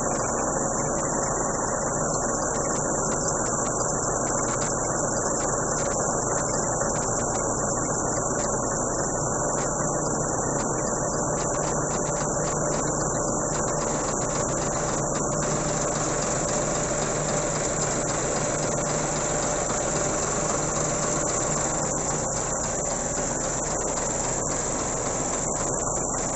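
An engine running steadily at idle, without change in speed.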